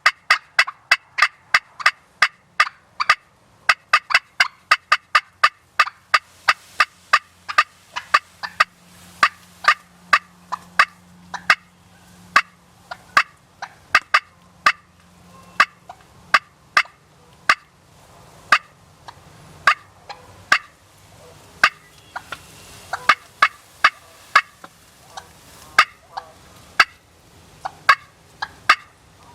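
Turkey clucking: a long run of short sharp clucks, about three a second at first, slowing to about two a second.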